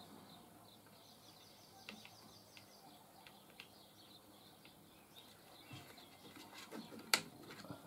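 Faint handling noises: small scattered clicks and taps as a plug and its cables are worked into the scroll saw's arm by hand, busier near the end, with one sharp click the loudest. A faint high bird trill chirps about a second in.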